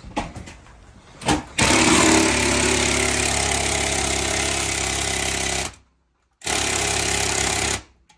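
Cordless impact wrench hammering on a rear-seat mounting bolt in two bursts: a long one of about four seconds, then a short break, then a second of about a second and a half. It runs on a battery down to one bar of charge.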